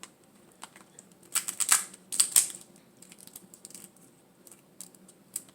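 Close-miked eating and food handling: scattered small clicks, with a run of sharp cracks and crackles about one and a half to two and a half seconds in.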